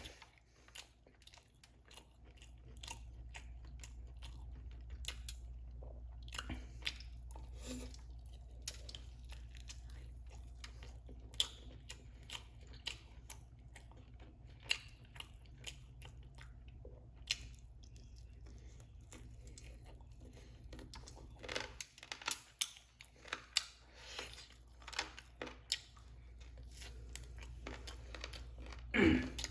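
Close-up chewing and crunching of crispy chicken wings and fries, with many short irregular mouth clicks and crackles over a steady low hum. The eating sounds grow louder and denser from about 21 seconds in.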